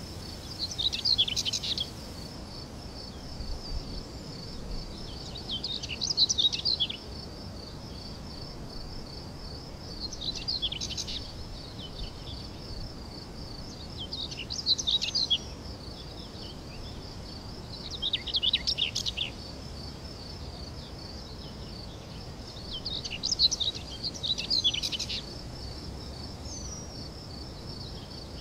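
Steady, finely pulsing insect trill, cricket-like, with short bursts of chirping bird song breaking in about every four to five seconds.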